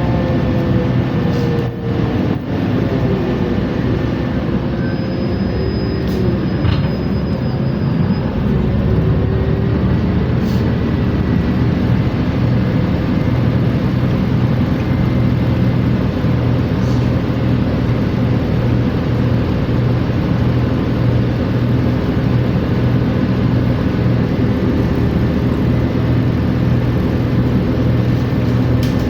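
LACMTA New Flyer XN60 articulated bus running with a steady low drone. A whine glides up and down in the first several seconds, then settles, over a faint steady high tone: the weird transmission sound the recording was made for.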